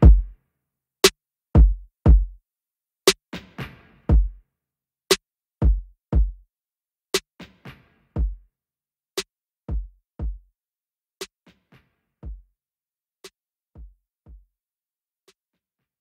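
Background music: an electronic drum-machine beat of deep kick drums and sharp clicks, fading out over the second half and stopping shortly before the end.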